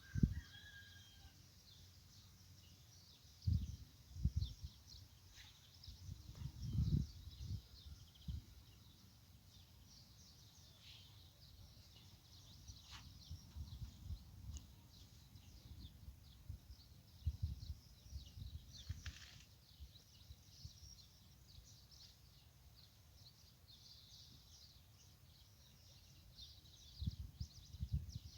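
Faint rural outdoor ambience: small birds chirping over and over, with irregular low rumbles, the strongest a few seconds in, around the middle of the first third and near the end.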